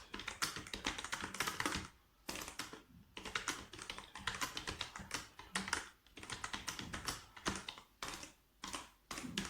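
Fast typing on a computer keyboard: quick runs of key clicks, broken by short pauses every second or two.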